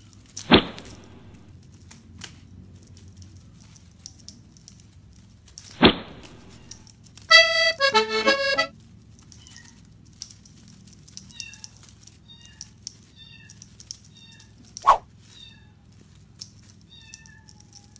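Long-haired colorpoint Persian cats play-fighting: two sharp knocks, then a loud cat yowl lasting about a second with quickly wavering pitch as the two cats wrestle, and a short cry later on. Faint, high, short chirps repeat in between.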